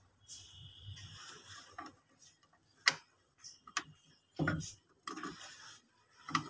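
Hands handling a small metal controller fixing clamp and the panel's wiring, making scattered sharp clicks and rustling; one click about three seconds in is the loudest, and a duller knock follows a little later.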